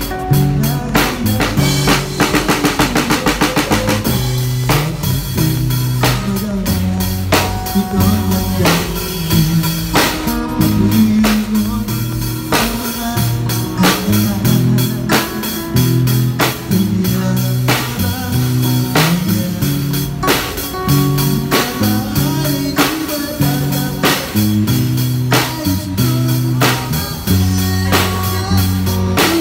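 Drum kit played by a child street drummer (snare, cymbals and bass drum) along to music with guitar and bass, with a fast drum roll about two to four seconds in.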